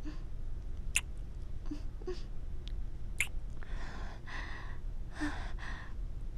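Close-miked kiss sounds from a woman: sharp wet lip smacks about a second in and again about three seconds in, with soft breathy exhales after them.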